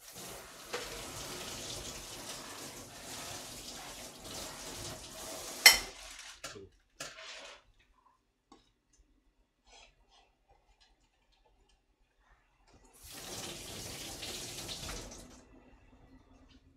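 Kitchen sink faucet running water for about six seconds, then a sharp knock, a few faint clicks, and the faucet running again for a couple of seconds near the end.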